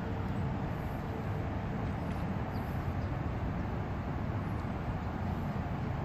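Steady low outdoor rumble with no distinct events, the kind made by distant traffic or wind on the microphone.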